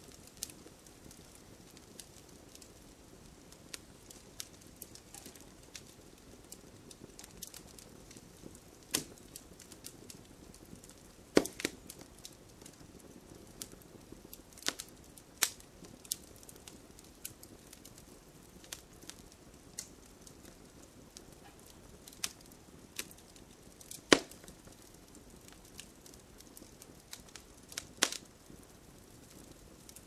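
Fireplace fire crackling: scattered small snaps and pops over a soft steady hiss, with a handful of louder sharp pops.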